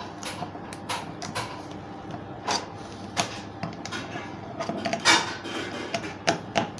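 Screwdriver loosening the small metal screws on the bracket of a Kent RO solenoid valve, heard as irregular metal clicks and scrapes, the loudest about five seconds in and two more near the end.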